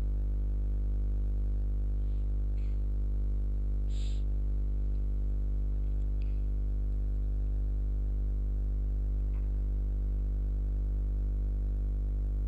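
A steady low hum made of evenly spaced pitches, with a few faint clicks, the clearest about four seconds in.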